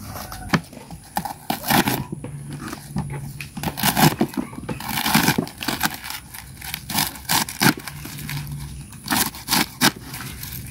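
Large knife slicing through crisp bitter mustard green stalks and leaves on a plastic cutting board: an irregular run of crunchy cuts and sharp knocks of the blade on the board.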